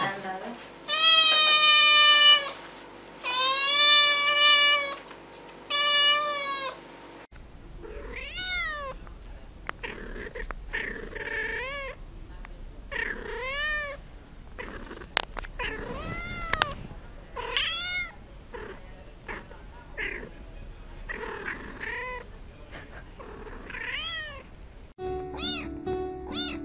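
Cats meowing in three separate clips. First a young white-and-grey kitten gives three long, loud meows. Then a cat gives many short meows that rise and fall, about one a second, and finally a tabby kitten gives a quick run of short meows.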